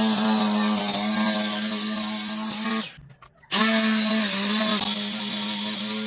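Small electric motor of a home-made grass cutter running steadily with a high whine, cutting out briefly about three seconds in and then running again.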